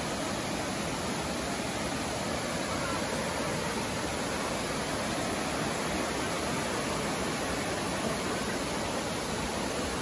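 Steady rush of water from a small cascade running over rock slabs.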